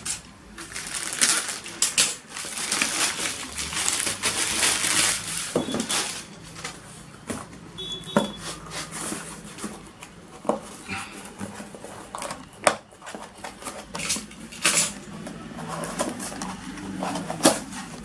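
A parcel being opened by hand: crinkling and rustling of packaging with many sharp clicks and knocks. The rustling is densest in the first several seconds and gives way to scattered handling clicks.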